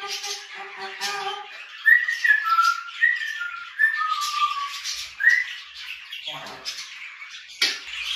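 African grey parrot whistling a short tune of clear, gliding notes, after a quick run of repeated short pitched notes that stops about a second in. Budgerigars chirp and chatter throughout.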